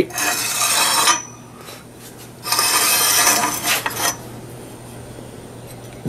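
Bead roller's guide plate sliding along its round steel rail, metal scraping on metal in two strokes of about a second each, the second starting about two and a half seconds in.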